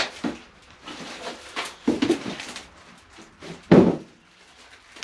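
Cardboard packaging and paper being handled and rustled as items are taken out of a box, with several short knocks and one louder thump about four seconds in.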